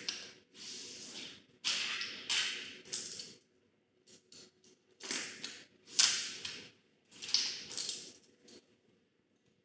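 Polarizer film being peeled off the glass of an LCD TV panel: a run of short tearing hisses as the adhesive film pulls away, about six pulls with a pause of a second or so near the middle.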